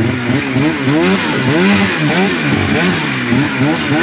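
Snowmobile engine revving up and down repeatedly, its pitch rising and falling about twice a second, as the sled is worked over a downed tree on the trail.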